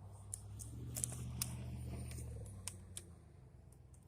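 Low steady hum of a vehicle engine that grows louder about a second in and eases back after about two and a half seconds, with a few light clicks and taps over it.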